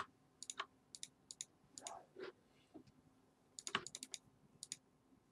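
Faint, scattered clicks of a computer mouse and keyboard, often in quick pairs or small clusters, as small spots are clicked away with a photo-editing clone tool.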